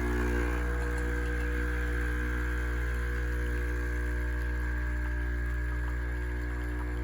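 Capsule coffee machine's pump running steadily while brewing, a loud even hum with a high whine above it.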